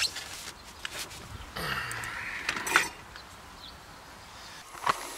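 Handling noise as foam pipe insulation is worked over copper refrigerant lines at an air-conditioning condensing unit: rustling with a few sharp clicks and knocks, and a short low sound falling in pitch about two seconds in.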